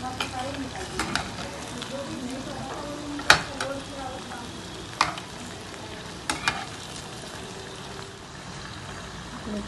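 Cornflour-coated bread samosas deep-frying in hot oil in a kadhai, a steady sizzle, as a slotted spatula turns them. The spatula knocks against the pan in a few sharp clicks, the loudest about three seconds in.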